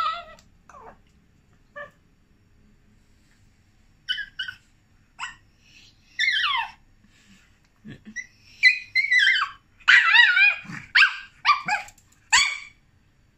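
Small long-haired dog whining and yipping in short, high-pitched cries that fall in pitch, begging for its food while it is made to wait. The cries are sparse at first, then come in a quick run of whines and yelps from about two-thirds of the way through.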